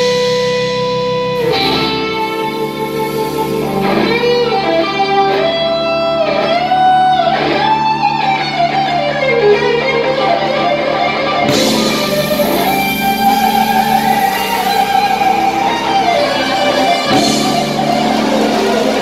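A live band playing: an electric guitar takes the lead with a held note, then a winding line of sliding, bending notes over drums and bass guitar.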